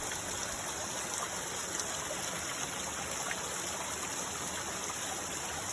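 Mountain creek water running steadily, a continuous rushing noise.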